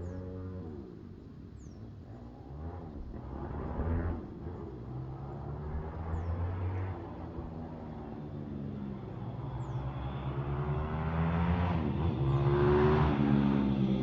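Pit bike with a YX160 Gen 3 160cc single-cylinder four-stroke engine, its valves freshly set to 0.004/0.006 in, ridden past and revved, its pitch rising and falling as it passes. It comes closer and gets louder near the end.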